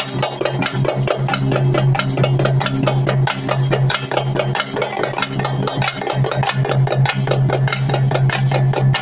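A thappattam ensemble drumming: thappu frame drums beaten with sticks in a fast, dense rhythm alongside a large bass drum, over a steady low hum.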